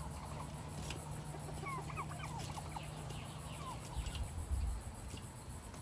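Backyard poultry, chickens and turkeys, calling in short quick clucking notes that come in clusters, busiest around two seconds in, over a low steady hum. A brief low rumble comes around four seconds in.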